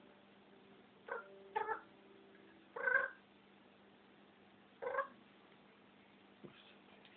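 African grey parrot giving four short cat-like meows, spaced a second or two apart, the third the longest and loudest.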